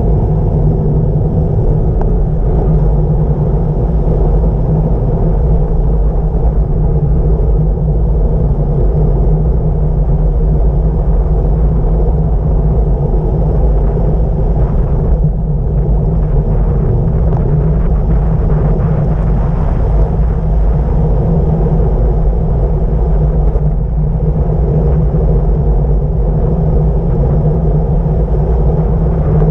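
Wind rushing over the microphone of a bike-mounted camera on a fast road-bicycle descent: a loud, steady low rumble with road noise.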